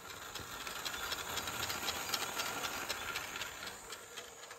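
A faint steady hiss with many small clicks and rattles, a little louder in the middle and fading near the end.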